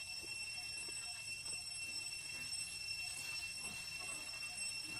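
Forest insects trilling in a steady high-pitched ring of several unchanging tones, with a faint low chirp repeating about twice a second. Under it are faint soft clicks as a long-tailed macaque picks seeds out of a green lotus pod.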